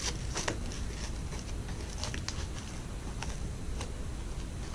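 Wire-edged ribbon rustling and crinkling as it is pulled and shaped into a bow by hand, in soft irregular crackles.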